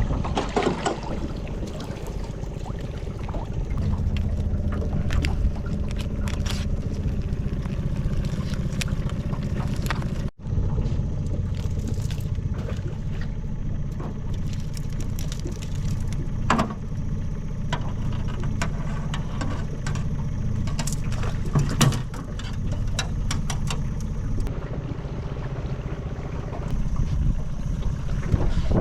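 A small boat's outboard motor running steadily, with a few sharp knocks here and there.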